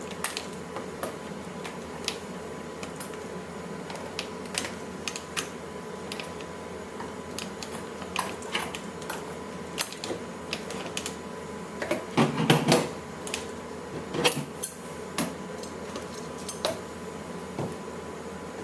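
Scissors snipping fur off an Elmo Live robot toy: irregular sharp clicks, with a louder burst of handling noise about twelve seconds in. A faint steady hum runs underneath.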